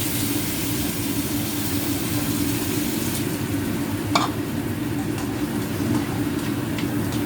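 Food sizzling in a frying pan, a steady hiss over a constant low hum, with one sharp knock about four seconds in.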